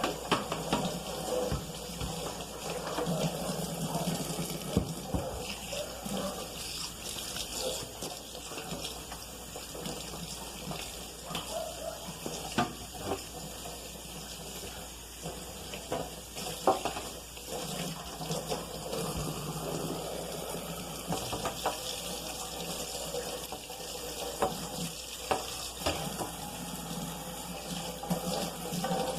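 Water running from a kitchen tap into a sink, with scattered clinks and knocks of things being handled and washed under it.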